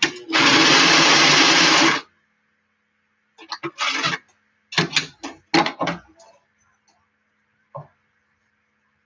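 Electric sewing machine stitching fast for about two seconds, with a brief stop just after the start. It then runs in several short bursts, and a single click follows near the end.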